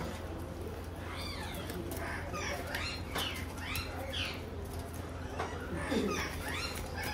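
Several dogs whining and yipping in short, high cries that rise and fall, again and again, begging as food is handed out. A steady low hum runs underneath.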